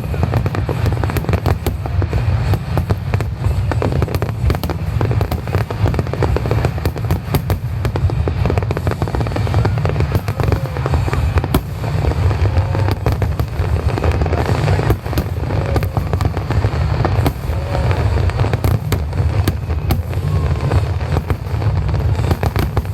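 Fireworks display: aerial shells bursting in dense, rapid succession, with sharp cracks over a continuous low rumble of booms.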